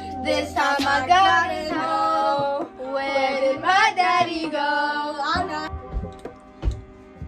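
Music with a female voice singing, its pitch gliding and bending through held notes over a steady backing. The singing drops away about five seconds in, leaving a couple of soft knocks.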